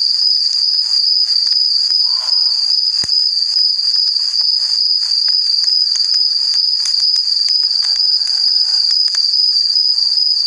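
A steady, high-pitched insect trill with a fine pulsing texture, running unbroken, with one faint click about three seconds in.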